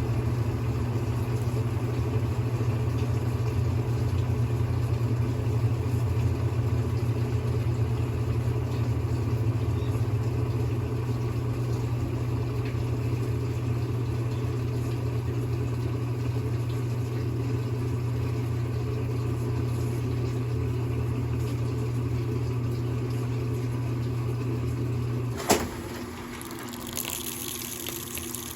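Brastemp Intelligent 7 kg washing machine in its spin cycle, its motor giving a steady hum. Near the end a click sounds and the hum cuts off, then a hiss of running water starts.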